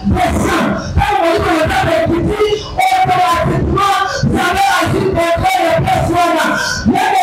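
A woman preacher's voice shouting emphatically and at a high pitch into a microphone, amplified through the church sound system.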